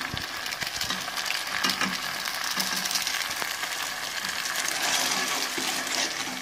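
Noodles and fried tempering sizzling steadily in a hot pan, with a few faint light clicks.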